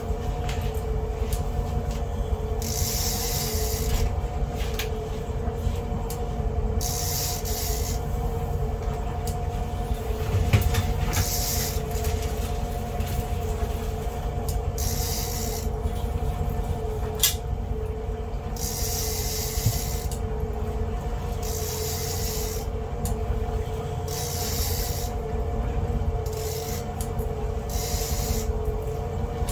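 Boat engine running steadily at trolling speed, a constant hum over a low rumble. Short bursts of hiss come and go every few seconds.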